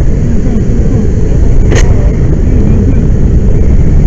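Loud steady roar of a fire burning at a rail tank-car training prop, together with the rush of a fire hose nozzle spraying a water fog stream into it. A single sharp click comes a little under two seconds in.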